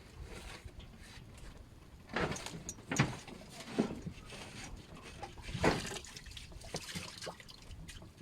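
Water sloshing and splashing, with four short louder splashes through the middle.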